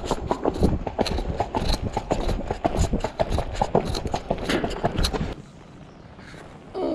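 A horse's hooves clip-clopping on an asphalt road, a quick run of sharp knocks, stopping abruptly about five seconds in and leaving only faint background.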